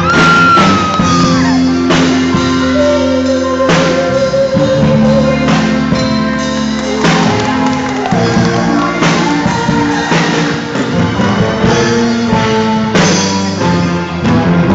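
A woman singing a song into a microphone over loud instrumental music, her voice carried by the hall's sound system.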